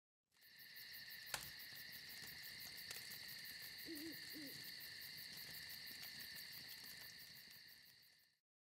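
Faint night ambience: insects, crickets most likely, chirring steadily in a fast even pulse, with an owl giving two short hoots about four seconds in and one sharp pop near the start. The sound fades in and fades out.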